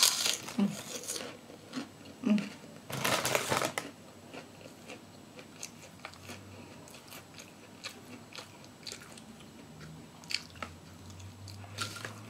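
A person biting and chewing crunchy food close to the microphone: loud crunches in the first four seconds, then softer chewing and small mouth clicks.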